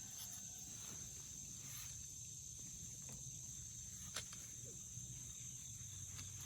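Insects chirring in a steady, high-pitched chorus, with one sharp click about four seconds in.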